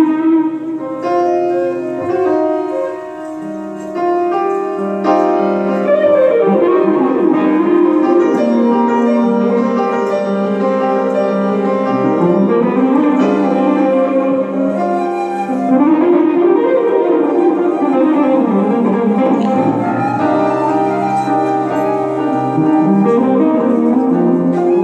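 Live small-group jazz with a small wind instrument, grand piano and hollow-body electric guitar playing together, without drums. Notes slide up and down in long glides several times among held and moving piano and guitar notes.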